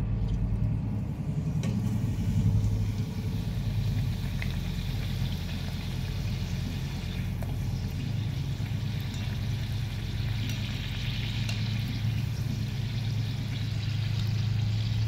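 Karanji pastry deep-frying in hot oil in a kadhai: a steady sizzle with bubbling, over a low steady hum that is the loudest part. A few light clinks of a wire spider strainer against the pan.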